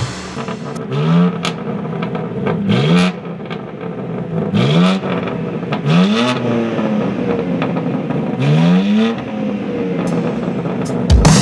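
BMW G82 M4 Competition's twin-turbo inline-six being revved several times at a standstill, each blip rising in pitch and falling back, about five in all. It runs through aftermarket catted downpipes and a mid-pipe with X-pipe.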